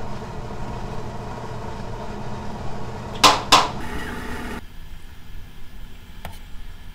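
A pot of beef and kelp broth at a rolling boil on a gas stove: a steady bubbling rush. A metal ladle knocks twice against the pot a little past three seconds in, and about a second later the boiling sound drops away abruptly to a quieter background.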